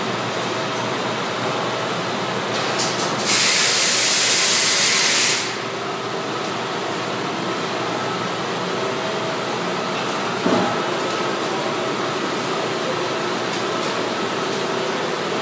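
Penta Automatic hot-air solder leveling machine running with a steady mechanical noise. A few seconds in comes a loud hiss of about two seconds, the blast of its hot-air knives clearing excess solder from the PCB panel. Near the middle there is a single knock.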